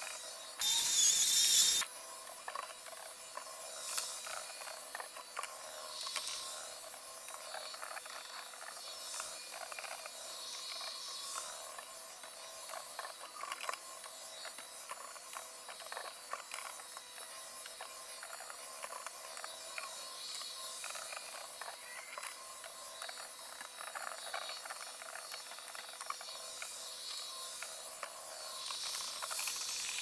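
Roomba 870 robot vacuum cleaning, its sound fast-forwarded with the time-lapse into a high, busy run of rapid clicks and whirring. A short, loud hiss comes about a second in.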